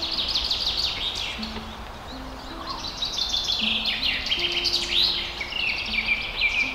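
Small songbirds twittering in quick chirps and trills, over soft background music with slow held low notes.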